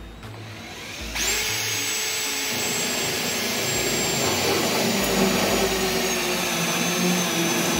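Cordless drill cutting out a spot weld in the steel floor pan with a spot weld drill bit. It starts about a second in and runs steadily under load, with a high whine that sags slightly as the bit bites.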